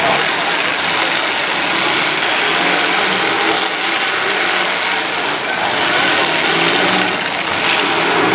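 Several demolition derby car engines revving hard together, a loud, dense, continuous racket.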